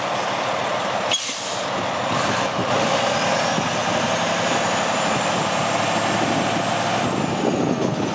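Freightliner Columbia 120 day cab tractor's diesel engine running as the truck pulls slowly forward. A short air-brake hiss comes about a second in, and a faint rising whine follows as it moves off.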